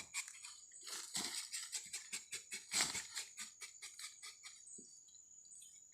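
Rubber-tapping knife shaving bark from a rubber tree in quick scraping strokes, several a second, which thin out in the last two seconds.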